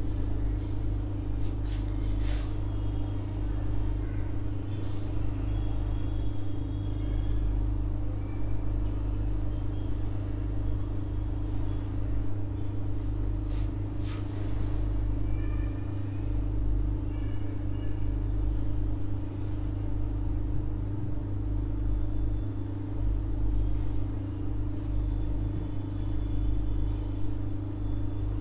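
A steady low rumble and hum with no speech, broken by a couple of light clicks about two seconds and about fourteen seconds in.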